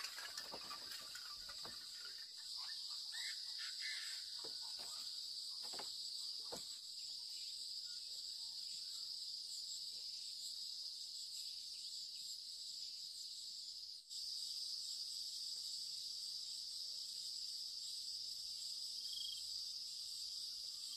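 Insects, crickets by the tags, chirring in a steady high-pitched chorus, with a few faint knocks in the first several seconds. The chorus drops out for an instant about two-thirds of the way through and comes straight back.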